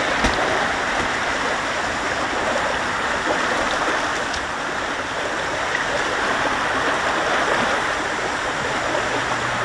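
Steady rushing of flowing water, an even hiss that holds at one level throughout.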